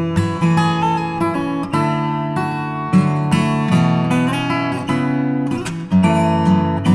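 Background music: acoustic guitar playing plucked and strummed chords at a steady level.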